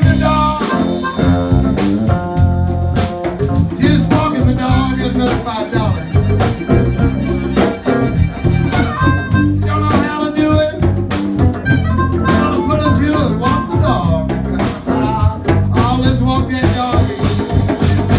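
Live blues band playing: a blues harmonica wailing over a chugging electric guitar and drum kit, with a man singing at times.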